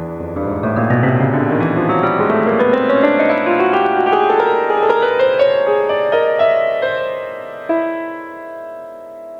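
Background piano music: a long run of notes climbing steadily in pitch, then a chord struck near the end that rings out and fades.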